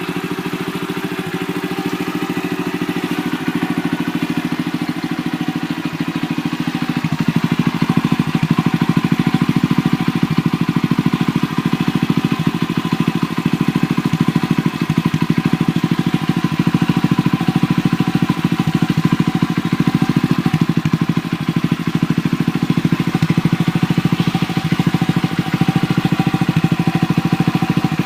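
Carbureted Honda Little Cub's single-cylinder four-stroke engine idling through a Takegawa Bomber aftermarket muffler, a steady, even exhaust beat. It grows louder over the first several seconds, then holds steady.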